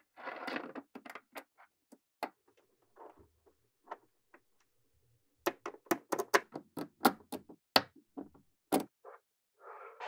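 Small magnetic balls snapping and clicking together as they are built up by hand, in sharp separate clicks. There is a short rattle of balls in the first second, a few scattered clicks after it, and a quick run of clicks in the second half.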